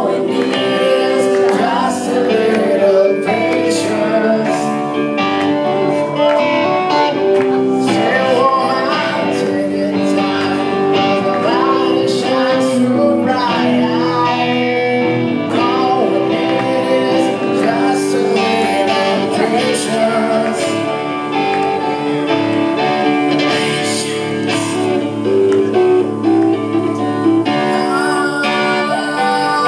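Double-neck electric guitar played live in a clean tone, picked notes and chords ringing on, with singing over it.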